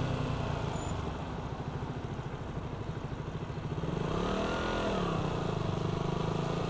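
KTM Duke 200's single-cylinder engine running under way, with wind noise on the microphone. The engine quietens for a couple of seconds about a second in. About four seconds in its pitch rises and then falls back, a rev up and down.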